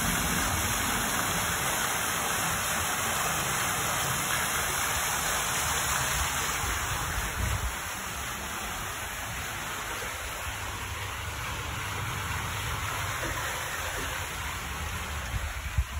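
Water pouring from a pool's umbrella fountain, a curtain of water splashing into the pool in a steady rushing hiss that grows quieter about halfway through.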